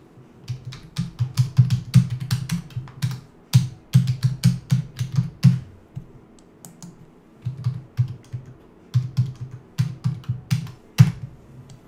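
Typing on a computer keyboard: quick runs of keystrokes, a short pause about six seconds in, then another run, and a single louder key or click near the end.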